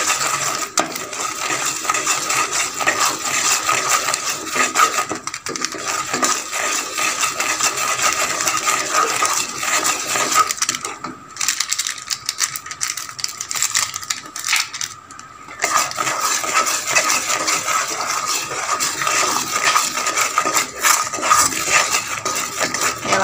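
Sugar syrup, boiled to one-string consistency, bubbling in a pan while a flat spatula scrapes and clinks against the pan as it stirs, a dense crackly clatter that drops away briefly twice.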